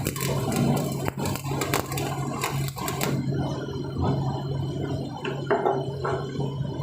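Electric arc welding: a dense, crackling sizzle from the welding arc that cuts off about three seconds in, leaving a steady low hum and quieter clatter.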